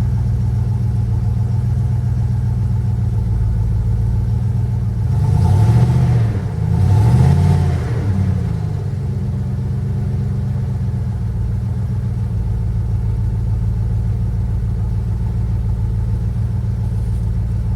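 1995 Jeep Grand Cherokee's 5.2-litre V8 running steadily just after a hard cold start, revved up and back down twice near the middle before settling back to idle.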